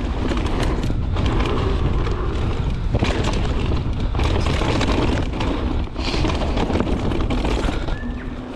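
Santa Cruz mountain bike descending a rough dirt and rock trail, heard on a body-mounted action camera. Wind buffets the microphone with a heavy low rumble, while the tyres rumble over dirt and rocks and the bike rattles with frequent sharp clicks and knocks.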